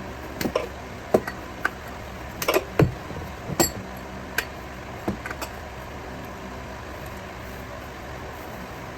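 Metal hand tools clinking and knocking irregularly, about nine sharp taps in the first five seconds, as a fastener under a car is worked tight during an oil change. A steady low hum runs underneath.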